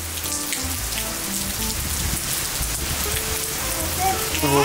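Steady hurricane rain falling and pattering on the ground.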